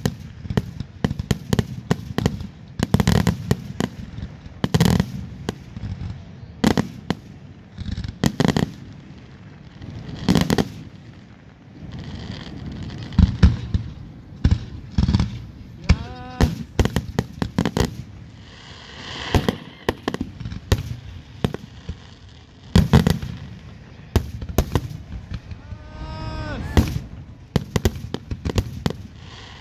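Aerial fireworks shells launching and bursting during a finale: a dense, irregular run of sharp bangs, with low rumbling echoes between them.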